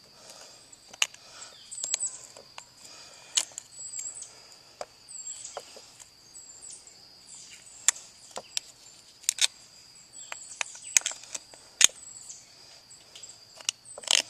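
Scattered sharp clicks and taps, metal on metal, as the bent tang of a freshly installed Heli-Coil thread insert is worked at in a wheel hub's bolt hole. Birds chirp softly in the background.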